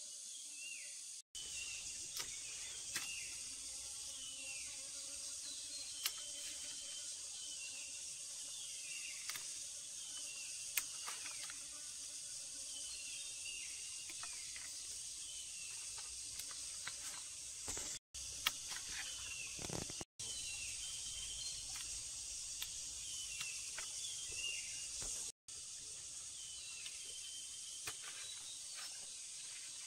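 Rural outdoor ambience: a steady high drone of insects with many short, falling bird chirps repeated throughout, and a few light clicks and taps. The sound drops out for an instant four times.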